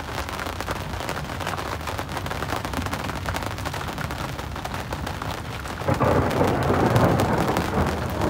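Steady rain with many small drop hits, and wind on the microphone; about six seconds in a louder, lower rush of wind sets in and keeps up.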